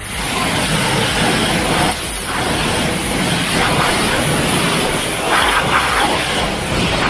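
High-pressure water spray washing a car's alloy wheel and tyre: a steady, loud hiss of water striking the metal and rubber, which dips briefly about two seconds in.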